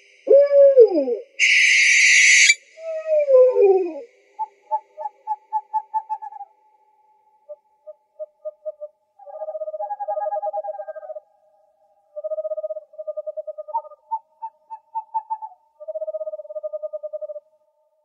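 Owl calls: a short wavering wail at the start and a harsh hissing screech about a second and a half in, then a falling whinny. After that come runs of quick hoots and quivering trills held at one pitch, with short pauses between them.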